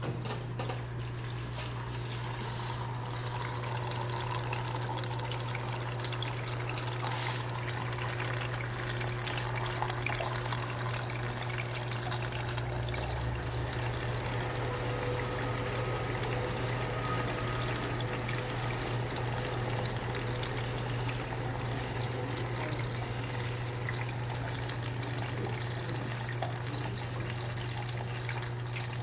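Water pouring and trickling steadily into a KMC washing machine as it fills, over a steady low hum.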